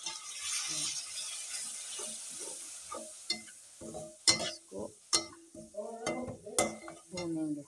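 Metal spatula stirring and scraping a frying masala of onions, tomatoes, spices and freshly added yogurt in a metal pan on a gas flame. A sizzle is heard at first; from about three seconds in come repeated sharp clinks and scrapes of the spatula against the pan.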